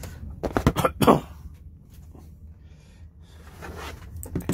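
Handling noise from a smartphone being picked up and handled close to the microphone: a quick cluster of knocks and rubbing about a second in, then quieter rustling, over a steady low hum.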